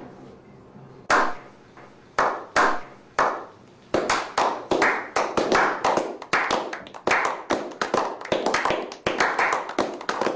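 A slow clap: single hand claps about a second apart, joined about four seconds in by several more people clapping faster, about three or four claps a second, building into a small round of applause.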